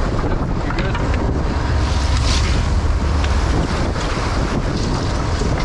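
Wind buffeting the camera microphone on a fishing boat at sea, with the rush of water and a steady low rumble underneath.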